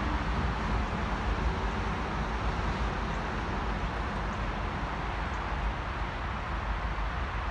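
Steady outdoor background rumble and hiss, heaviest at the low end, with no distinct event standing out.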